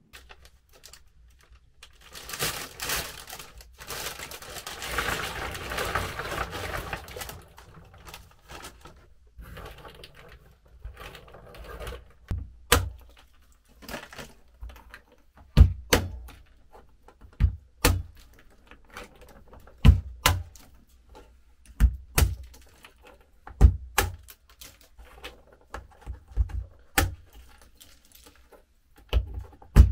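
Wood being struck with a tool: repeated sharp knocks, one every second or two, starting after a stretch of rustling and scraping.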